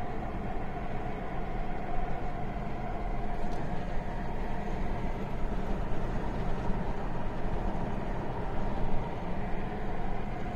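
Steady road and engine noise heard inside the cabin of a car driving along an open road.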